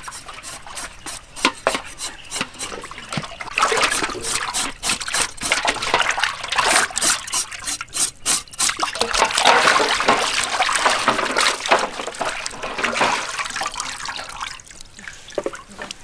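Water splashing and sloshing in a large metal basin as a slab of raw pork belly is rubbed and turned by hand, in irregular bursts that thin out near the end.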